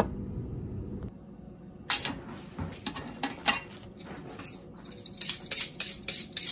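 Kitchen knife being honed on a honing steel: metal-on-metal scraping strokes, a few spaced ones at first, then quicker, about three a second, near the end.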